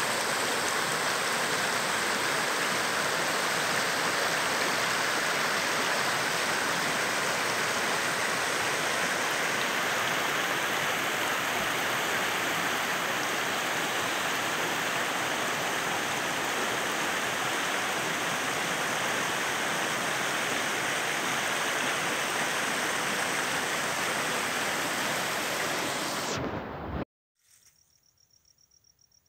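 Mountain stream rushing over rocks, a steady hiss of running water. It cuts off suddenly near the end, leaving only a faint, high insect trill.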